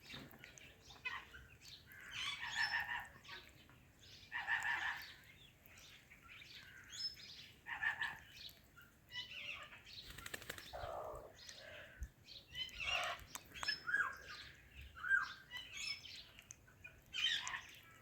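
Pet parakeets, an Indian ringneck and an Alexandrine, calling back and forth in short squawks and chirps, a new call every second or two, some with quick slides in pitch.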